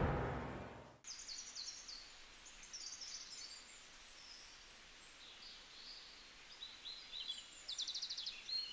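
The tail of the intro music fades out in the first second, then faint birdsong: scattered high chirps and short rapid trills, growing busier near the end.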